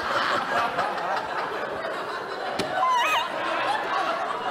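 Studio audience laughing together, with a woman laughing loudly among it and a short high laughing cry about three seconds in.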